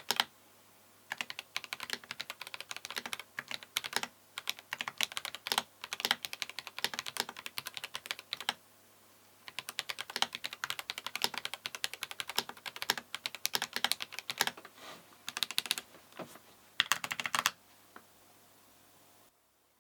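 Fast typing on a mechanical keyboard with Akko V3 Cream Yellow linear switches: quick runs of clacky keystrokes broken by short pauses. The typing stops near the end, with one last lone keystroke after it.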